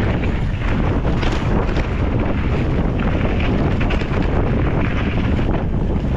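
Wind buffeting the microphone of a camera riding on a mountain bike at speed on a gravel single track, a steady rush with the crunch of tyres on gravel and a constant clatter of small knocks from the bike over the rough ground.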